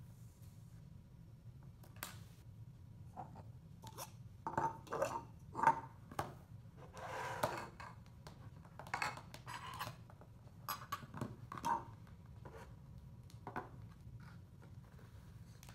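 Plastic toys and clear plastic cups being handled and set down on a tabletop: a scatter of light clacks and knocks, with a brief rustle about seven seconds in.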